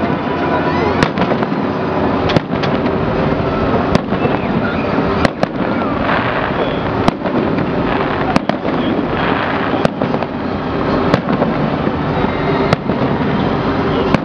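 Aerial firework shells bursting in a display, a sharp bang about every second and a half over a constant din of crackling.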